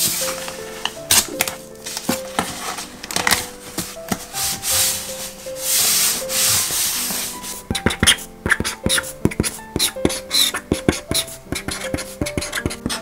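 Hands rubbing and pressing packing tape flat on a cardboard box, then, from a little past halfway, a Mckee permanent marker scratching across the cardboard in many quick short strokes as a label is written.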